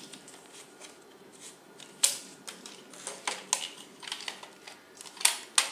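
Sharp plastic clicks and clacks from a Nerf Chewbacca Bowcaster blaster being handled and readied for another shot, about half a dozen in all, with the loudest snaps about two seconds in and near the end.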